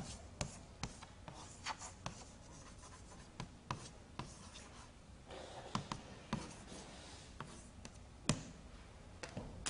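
Chalk writing on a chalkboard: faint, irregular taps and short scratches as the chalk strokes the board, with one sharper tap about eight seconds in.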